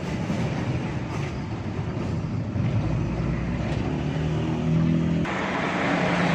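A car's engine running with surrounding street noise, its low hum rising slightly in pitch, then changing abruptly about five seconds in.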